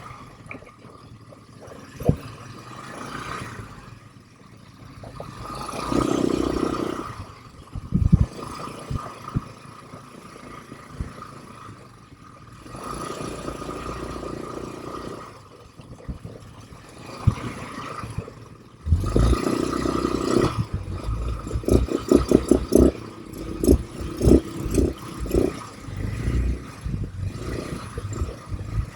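ATV engine running and revving up in repeated surges while the ATV is ridden over a rough trail. Clattering knocks from the bumps come thickest in the last several seconds.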